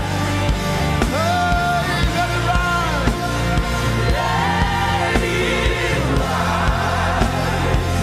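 Live gospel praise-and-worship music: a band with a steady bass and drum beat, and voices singing held, sliding notes over it.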